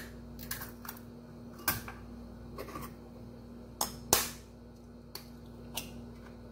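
Kitchen knife tapping eggshells to crack them open: a series of sharp clicks, the two loudest close together about four seconds in.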